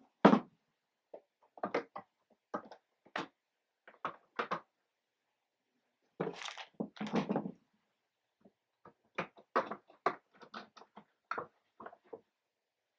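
Clear plastic drop-front sneaker boxes being opened and shut and sneakers pulled out and set down: a string of short plastic knocks and clacks, with a longer spell of shuffling and handling about six seconds in.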